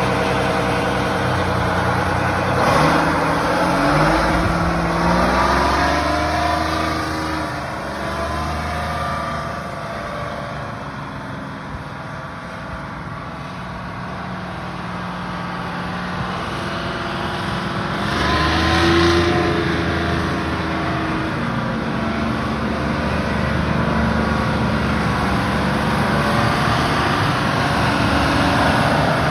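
Diesel engine of a Euclid R-35 off-highway water truck revving as the truck pulls away, its pitch climbing in steps about two to five seconds in. It fades as the truck moves off, swells with another rev a little past halfway, then runs steadily as it comes back.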